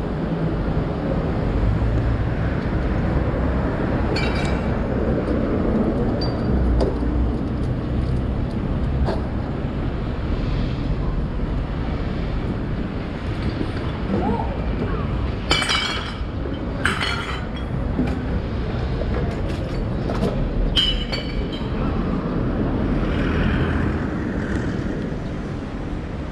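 City street ambience with a steady low traffic rumble. A sharp clink comes a few seconds in, and a cluster of clinks follows past the middle.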